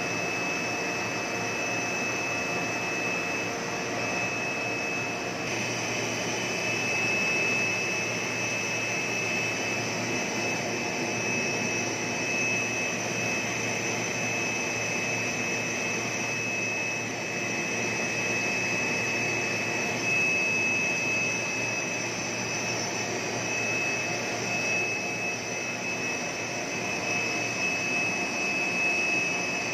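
Blown-film plastic extrusion machine running: a steady industrial drone of motors and blowing air, with a steady high-pitched whine over it that grows stronger about five seconds in.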